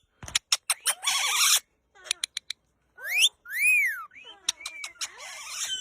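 Pet birds calling: a few sharp clicks, a harsh squawk about a second in, then a rising whistle and an arched whistle near the middle, with more chattering calls near the end.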